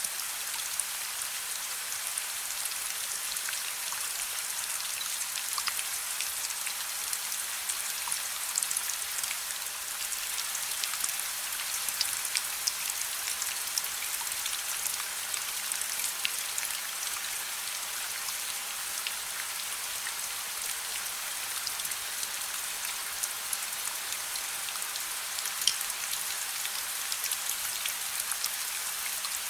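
Steady rain hiss mixed with the scattered small crackles and pops of a wood fire in a fireplace, one pop a little louder near the end.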